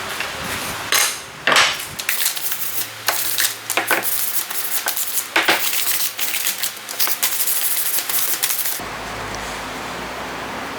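Irregular sharp taps and clicks of hand tools on wood and metal, several a second, during work on a wooden hand plane. About nine seconds in, they stop abruptly and give way to a steady hiss.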